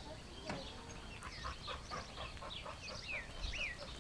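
Ducklings peeping: many short, high calls that slide down in pitch, several a second, growing busier toward the end.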